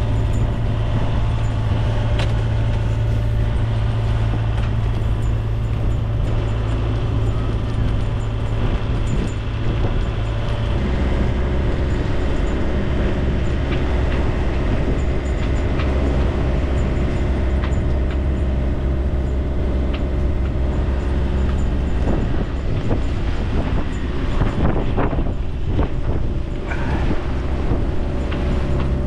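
Steady drone of a sailboat's engine under way, heard through strong gusty wind on the microphone. The drone drops to a lower pitch about eleven seconds in, and a few knocks come near the end.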